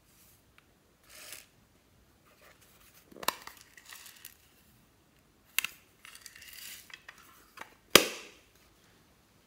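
A plastic glasses case clicking open and shut, with a soft rattle of tiny polymer clay fruit slices tipping out of it into a glass dish. Three sharp clicks, the loudest near the end.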